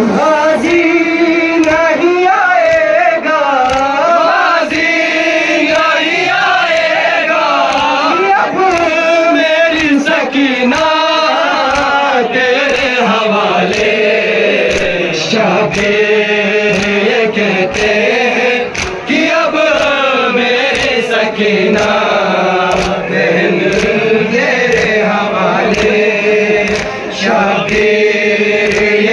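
A chorus of male voices chanting a Kashmiri noha, a Muharram lament, with a sharp strike about once a second keeping the beat.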